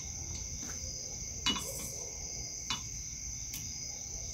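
Steady high-pitched insect trilling in the background, with two sharp clicks, about a second and a half in and again about a second later.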